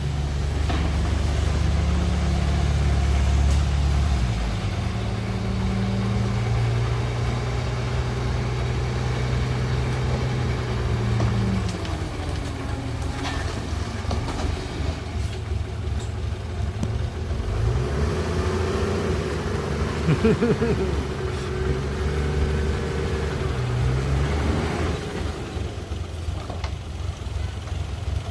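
A heavy vehicle's engine running steadily. Its note drops about 4 s in and again near 12 s, then rises and falls between about 18 and 25 s, as the engine is revved and eased off.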